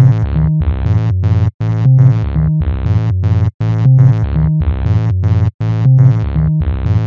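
Electronic background music: a synthesizer riff of short repeated chords over a bass line, breaking off briefly about every two seconds.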